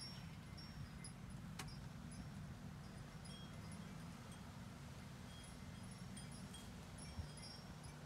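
Faint outdoor ambience: a steady low rumble, with scattered short, high tinkling notes at a few fixed pitches and a single sharp click about one and a half seconds in.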